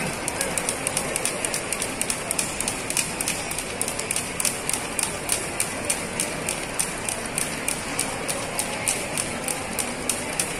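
Jump ropes ticking against a hard floor in quick, regular clicks, about four to five a second, from several skippers at once, over a steady background hubbub of a crowd.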